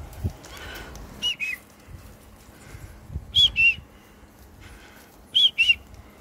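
A short two-note whistle, given three times about two seconds apart, each note a quick rise and fall in pitch. There is a dull bump just at the start.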